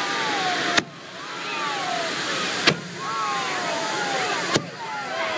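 Hand-held tezutsu bamboo-tube fireworks spraying, a steady rushing hiss, broken by three sharp bangs about two seconds apart.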